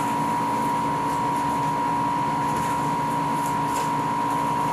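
A steady hum at a fixed, fairly high pitch with a lower hum beneath it, holding at one level throughout.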